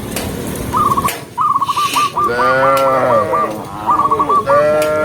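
Cattle mooing: several long calls overlap from about a second in, with a rapid warbling call repeated above them.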